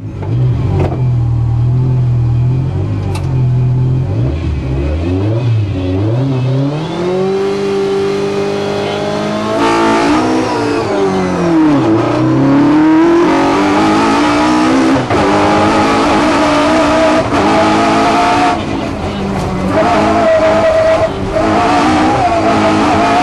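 Racing car's engine heard from inside the cabin, running at low revs for the first few seconds, then accelerating hard about five seconds in. From there it keeps revving up and dropping back through gear changes and corners at high revs.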